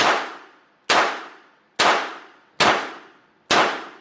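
Five pistol shots fired at a steady pace, a little under one a second, each a sharp crack with an echoing tail.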